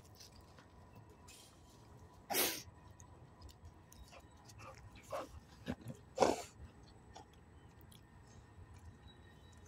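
A dog close by making two short, sharp, noisy sounds about four seconds apart, with a couple of fainter ones between.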